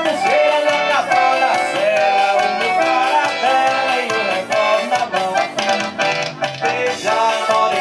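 Forró band playing: an accordion melody over a steady, fast percussion beat.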